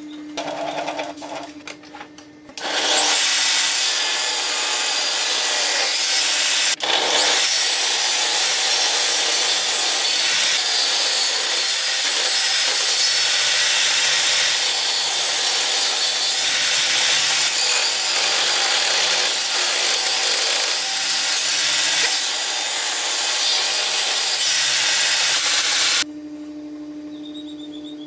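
Table saw running and cutting pallet wood, loud and steady for about twenty-three seconds, with a momentary break about seven seconds in.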